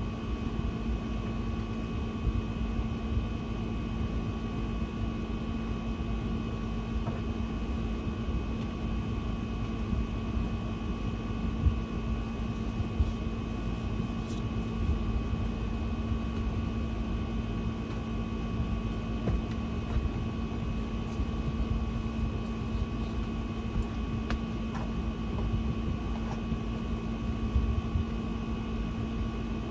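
Steady machine hum from an appliance running in a small room: a constant drone with a fixed tone over a low rumble. A few faint ticks and rustles sit on top.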